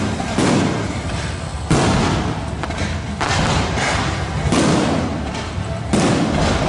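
Fireworks display going off: five loud bangs, about one every second and a half, with continuous crackling in between.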